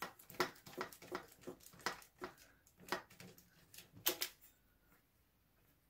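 Ratchet wrench clicking slowly, about three sharp metallic clicks a second, as a rocker-cover bolt is undone. The loudest pair of clicks comes about four seconds in, and the clicking stops soon after.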